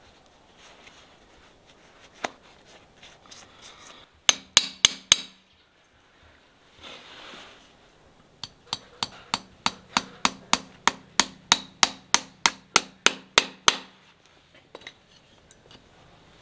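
A farrier's hammer striking a horseshoe held to a horse's hoof. A quick run of five blows comes about four seconds in, then after a pause a steady run of about twenty blows, roughly four a second, each with a short ring.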